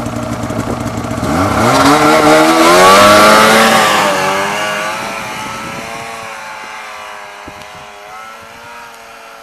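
Arctic Cat snowmobile's two-stroke engine revving hard as the sled pulls away, its pitch climbing steeply about a second in, then fading as it runs off up the hill into the distance.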